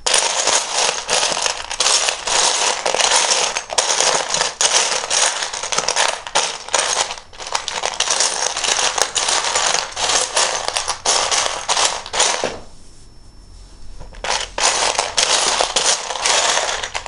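Loose plastic Lego bricks clattering and rattling in a dense run of clicks as a hand sifts through a pile of pieces, with a short lull about thirteen seconds in.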